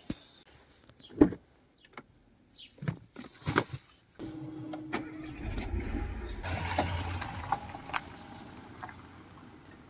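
A few knocks and thumps, then a car engine starts about four seconds in and keeps running, fading over the last couple of seconds as the car pulls away.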